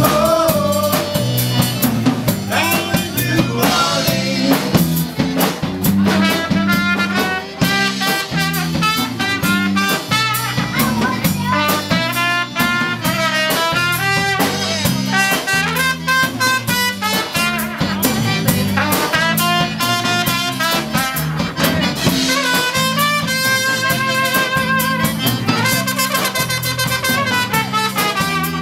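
Live Cajun band playing an upbeat dance tune: button accordion carrying the melody, with trumpet, electric bass and a drum kit keeping a steady beat.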